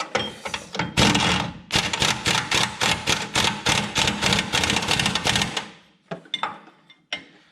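Impact wrench on its lower setting hammering the nut of a rear shock absorber's mounting bolt snug: a fast, steady rattle of blows starting about a second in and lasting about five seconds, followed by a few light clicks.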